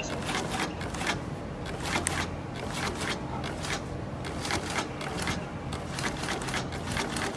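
LX-668ZZ double-needle shoe upper-and-sole sewing machine stitching a rubber sole to a fabric upper: a steady motor hum with irregular mechanical clicking from the needle mechanism.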